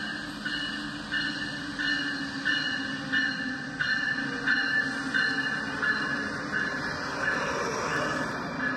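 Toy electric train running on plastic track: a steady motor hum with the wheels clicking over the track joints in an even rhythm, about one and a half clicks a second. It grows louder near the end as the train passes close by.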